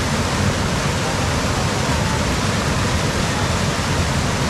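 A river's water rushing steadily, an even, unbroken noise.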